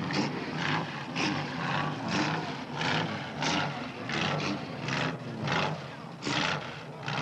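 Race car engines running on the starting grid, a steady low engine note with short noisy surges about twice a second.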